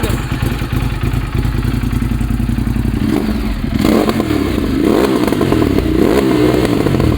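Ducati Multistrada V2's two-cylinder engine, just started, idles with an even pulse. From about three seconds in, it is revved in a series of throttle blips that rise and fall in pitch.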